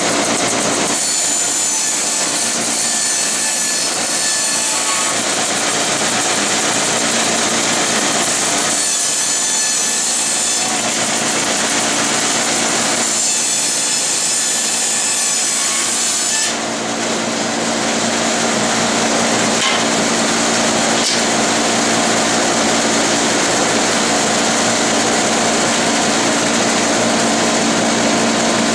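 Hitachi CB75F resaw bandsaw, fitted with a new motor, ripping a thick board of wenge, over the steady noise of a dust collector. The cutting sound comes in three surges as the board is pushed through. The sound changes about halfway through, losing its hiss and settling to a steadier running noise.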